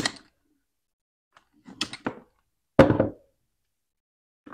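Several separate clunks and knocks of a Milwaukee cordless drill's metal belt clip being hooked onto the tool tote's tape-measure clip, the loudest about three seconds in.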